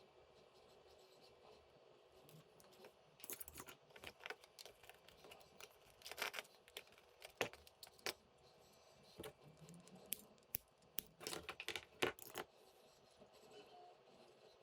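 Irregular clicks, taps and short scraping rasps of small hard parts being handled and worked by hand, clustered between about three and twelve seconds in.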